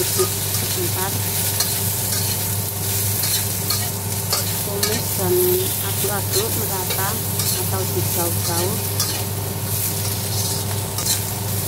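Food sizzling in hot oil in a steel wok while a metal spatula stirs and scrapes it, with frequent clicks and short squeaks of metal on metal. A steady hum runs underneath.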